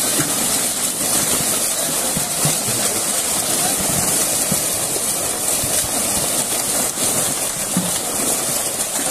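Heavy, continuous splashing and churning water as a crowd of large fish thrash and leap inside a seine net pulled tight in a pond, a steady hiss of spray broken by many small splashes.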